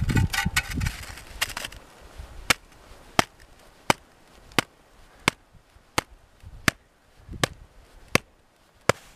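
A gloved hand taps on an avalanche shovel's blade laid on top of an isolated snow column, the even taps of a snowpack stability column test. There are about ten sharp taps, roughly one and a half a second. Before them, for the first two seconds or so, the shovel scrapes and rustles against the snow.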